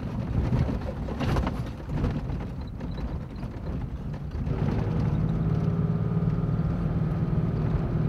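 Car driving across a timber plank bridge, the tyres knocking over the boards, then running on a gravel road. From about halfway the engine note rises a little and holds steady over the tyre rumble.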